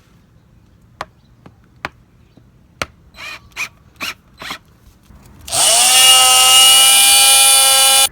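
A few sharp clicks and short knocks, then a power drill runs for the last two and a half seconds, its whine rising as the motor spins up and then holding steady; likely driving a screw to fasten a stake to the wooden slab form.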